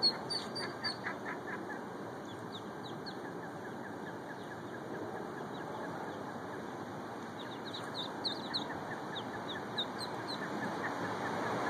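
Mallard ducklings peeping: many short, high cheeps, thickest at the start and again from about seven to ten seconds in, over a steady background hiss.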